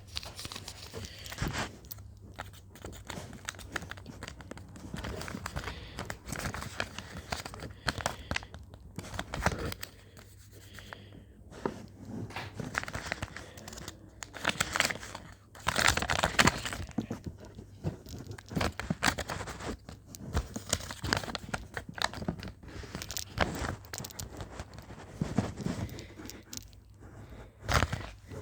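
Blind-bag packaging being crinkled and torn open by hand, a run of irregular rustles and crackles, loudest about halfway through.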